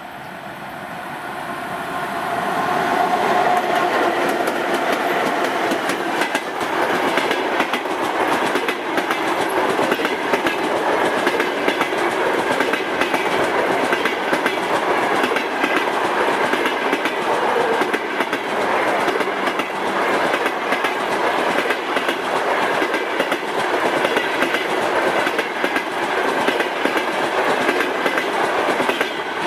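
A train passing close by, its wheels clattering rhythmically over the rail joints. It grows louder over the first few seconds, then stays loud and steady as the cars go by.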